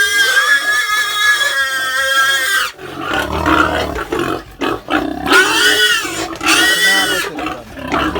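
Pigs squealing in long, high, wavering cries, several in a row, with lower grunting about three seconds in.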